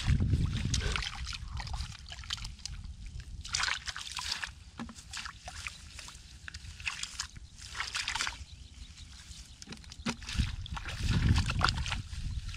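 Shallow muddy water sloshing and splashing in irregular bursts as hands grope through a mud puddle, with heavier low sloshing at the start and again near the end.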